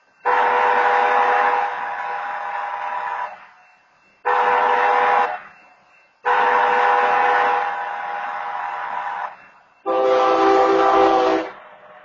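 BNSF locomotive air horn blowing the grade-crossing signal, a long blast, a short blast and a long blast that complete the long-long-short-long pattern announcing the train's approach to a road crossing. Near the end a separate, lower-pitched horn blast sounds for about a second and a half.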